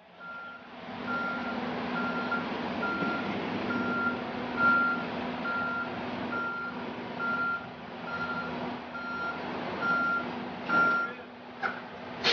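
Heavy-vehicle backup alarm beeping steadily, about one and a half beeps a second, over the steady hum of a diesel engine; the beeping stops near the end, followed by a short knock.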